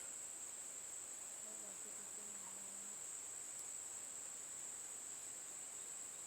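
Crickets chirring in one steady, unbroken high-pitched drone.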